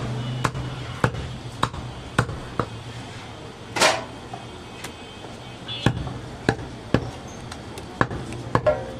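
Long butcher's knife chopping goat meat on a wooden log block: irregular sharp knocks of the blade striking the block, about one or two a second, with one longer, hissier stroke near the middle. A steady low hum runs underneath.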